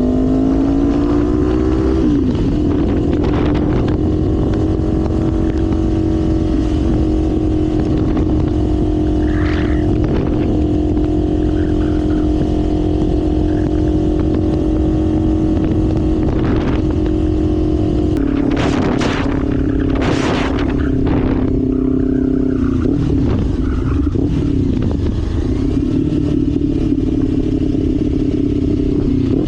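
Kawasaki Ninja 500's parallel-twin engine running under way with wind rush, heard from the bike: the pitch climbs at the start, holds steady at cruise, shifts about two-thirds through, then dips and falls near the end as it slows. A cluster of short sharp noises sits around the shift.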